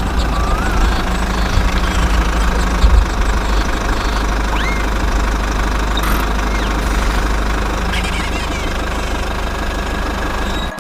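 An engine running steadily with a low rumble, with a few faint chirps, like birds, in the background.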